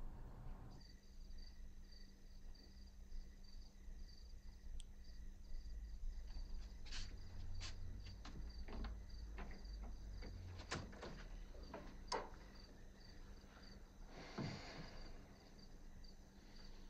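Crickets chirping in a steady pulsing trill, with a few sharp light clicks and knocks in the middle and a soft rustle near the end.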